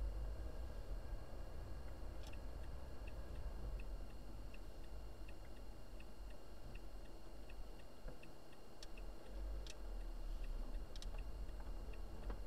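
Car turn-signal indicator ticking evenly, about one tick every three-quarters of a second, over the low rumble of the engine and road inside the cabin, with a few sharper clicks among the ticks.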